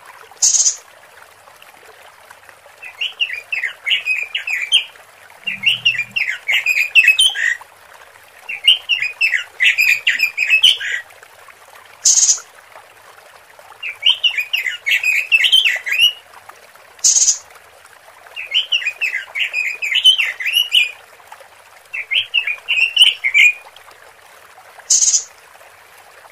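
Female Pekin robin (red-billed leiothrix) calling: repeated runs of quick chattering notes, each lasting one to two seconds and coming every few seconds, with now and then a short high hiss. This is the female's call, used as a lure to draw males.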